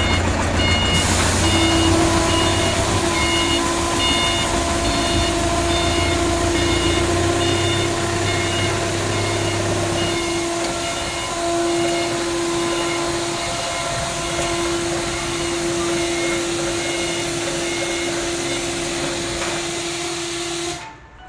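Forklift reversing alarm beeping in an even repeating pattern over the forklift's running engine, whose low rumble fades out about ten seconds in. A steady hum carries on under the beeps until just before the end.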